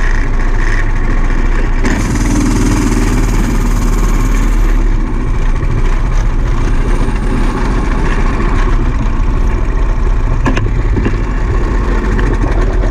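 A vehicle engine running steadily with a deep, constant drone and a hiss over it for the first few seconds. There is a single sharp knock about ten seconds in.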